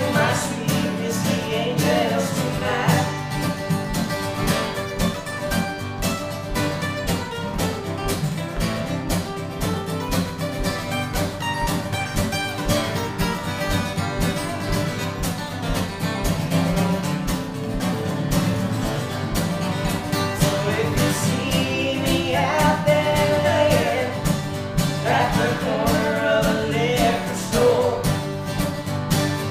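Two acoustic guitars strumming a country song, with a man singing over them; the singing is clearest near the start and through the last several seconds.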